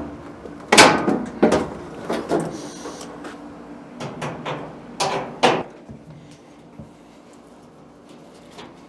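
Knocks and clanks from hands and tools working on a clothes dryer's sheet-metal cabinet and parts: a string of sharp hits over the first six seconds, then only faint handling.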